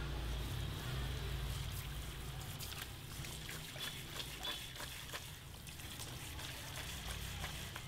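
Water from a handheld shower sprayer trickling and splashing over wet hair into a plastic shampoo basin, with many small splashes from about halfway in. A low steady hum runs underneath.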